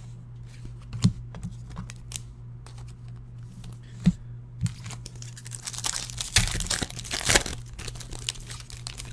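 Trading cards being handled on a table, with a few sharp taps, then a foil card-pack wrapper crinkling and tearing from about six to seven and a half seconds in.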